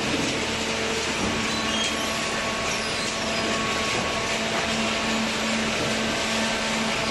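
Paper baler machine running: a steady hydraulic motor and pump hum over a continuous mechanical whir, with no distinct strokes or impacts.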